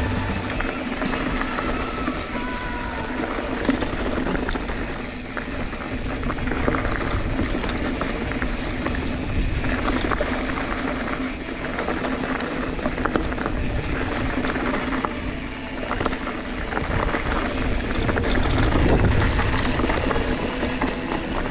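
Mountain bike ridden along a dirt singletrack: tyres rolling on dirt and the bike rattling over bumps, with a steady hum underneath.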